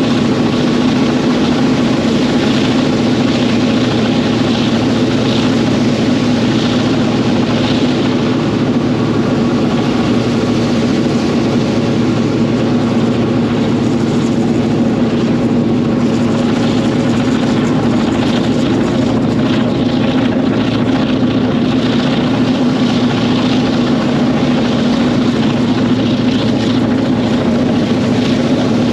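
EMD 16-567B two-stroke Roots-blown V16 diesel of the GM27 locomotive running steadily under way, a loud, even engine drone with no change in pitch or level.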